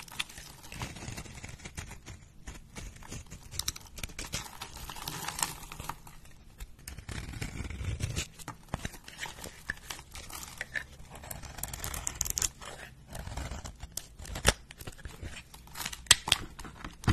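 Fingers squeezing and breaking apart a dry, crumbly white powdery block, making irregular crunching and crackling as it splits and flakes off, with sharper snaps in the second half.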